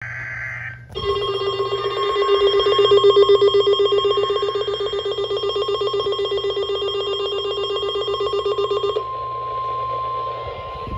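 Emergency alert broadcast tones. A brief high-pitched burst, then a loud buzzy alarm tone pulsing rapidly like an electric bell for about eight seconds, then switching to a single steady high tone.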